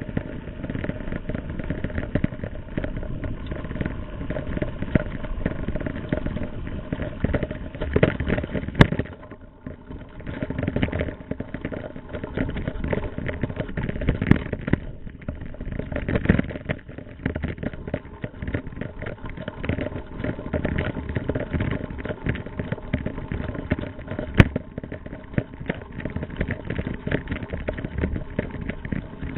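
Riding noise from a frame-mounted camera on a mountain bike rolling over a rough dirt track: a steady rush of wind and tyre noise with constant small rattles from the bike. Two sharp knocks stand out, one about nine seconds in and one about twenty-four seconds in.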